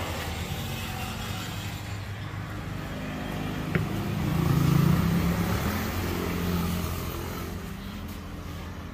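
A motor vehicle's engine running, with a low rumble that swells louder about four seconds in and fades again. There is one sharp click just before the swell.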